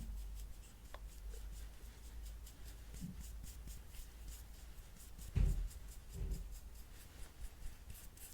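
Quick, repeated scratchy strokes of an art tool worked close to the microphone, with a few soft low thumps, the loudest about five and a half seconds in.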